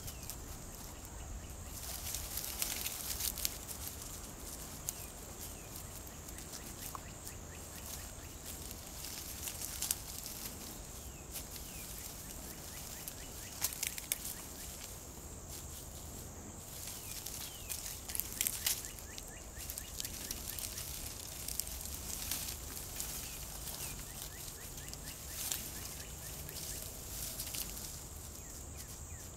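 Nine-banded armadillo rooting through dry leaf litter and grass: irregular rustling and crackling of leaves, with sharper crunches every few seconds.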